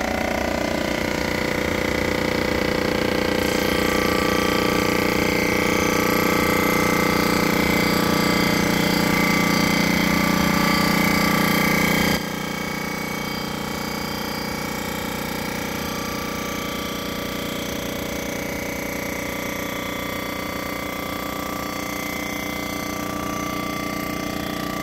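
Block surfacing machine running, its rotating cutter head taking a cut across the deck of a Toyota 3VZ engine block: a steady machine hum with several steady tones. The level drops suddenly about halfway through and then holds steady.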